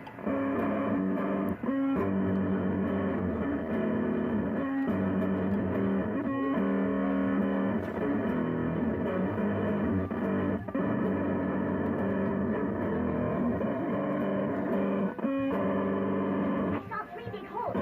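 Background music led by distorted electric guitar, with chords changing every second or two.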